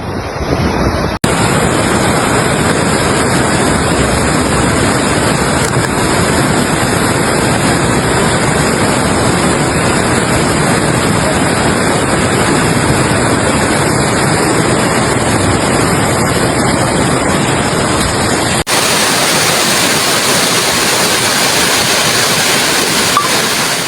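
Rushing floodwater: a loud, steady roar of fast-flowing water. It changes abruptly about a second in and again near nineteen seconds, as one clip gives way to the next.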